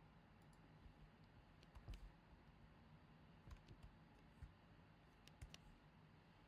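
Faint, scattered keystrokes on a computer keyboard: a dozen or so light clicks in short irregular runs over quiet room tone.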